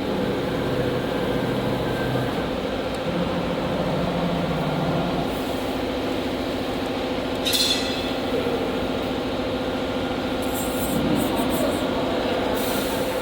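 Automatic tool change CNC router running with a steady machine hum, with a sharp click about seven and a half seconds in.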